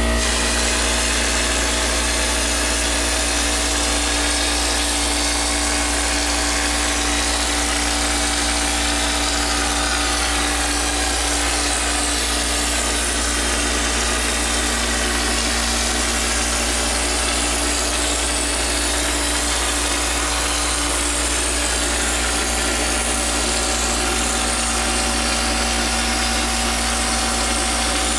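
Drywall texture hopper gun spraying acoustic popcorn ceiling texture: a steady rush of compressed air blowing the mix out of the nozzle, over the steady hum of an air compressor running.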